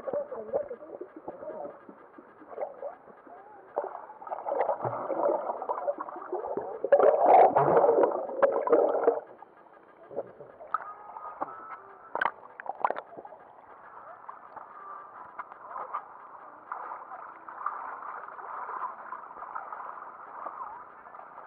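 Seawater splashing and gurgling around a swimming child, heard from at and just under the surface, so it sounds muffled. The loudest stretch of churning comes about seven to nine seconds in, and a softer steady wash follows.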